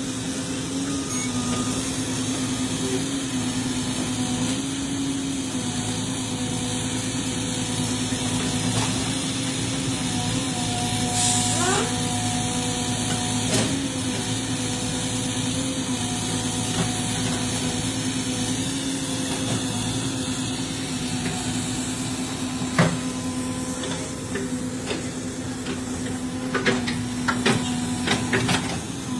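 CAT 307E mini excavator's diesel engine running steadily while digging, with a few sharp knocks, most of them near the end.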